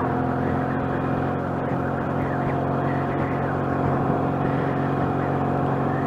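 Motorcycle engine and exhaust running at steady revs while cruising; the pipes are loud and noisy even with dB-killer baffles fitted.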